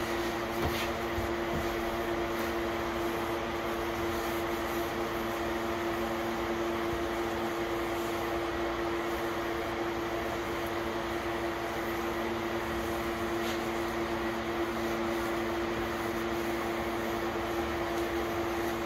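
An electric fan running steadily, a constant motor hum over an even rush of air, with two faint clicks.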